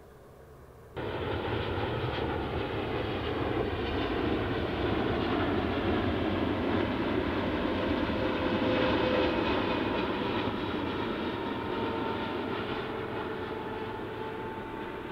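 Jet airliner on landing approach: a steady rush of jet engine noise with faint whining tones. It starts abruptly about a second in, is loudest about halfway through, then slowly fades.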